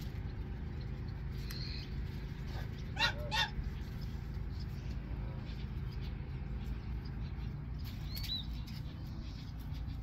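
Geese honking: two loud honks in quick succession about three seconds in, with a few fainter calls around them. A small bird chirps faintly near the end, over a steady low rumble.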